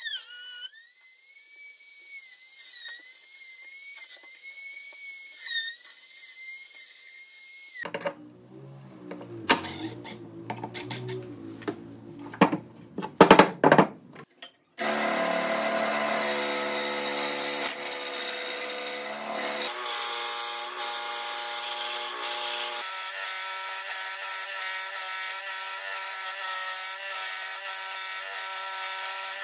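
Electric trim router whining at high speed, its pitch dipping and recovering as the bit cuts through wood. Halfway through come a few loud knocks and clatter, then a scroll saw buzzes steadily as it cuts.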